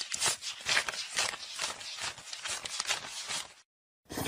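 Paper banknotes flicked one by one as they are counted by hand: a quick run of crisp clicks, about six a second, that stops about three and a half seconds in.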